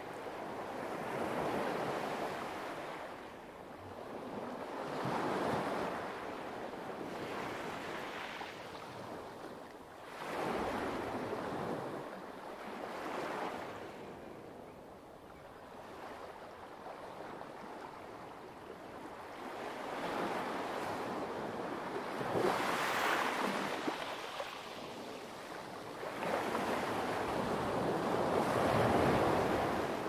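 Light waves washing onto a pebble beach, each one a hiss that swells and fades, arriving every few seconds with a quieter lull about halfway through.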